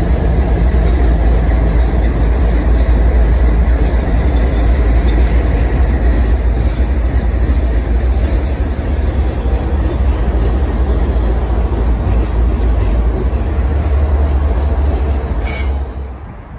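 Diesel freight locomotives passing close by: a deep, steady engine rumble under wheel and rail noise, dropping away sharply near the end.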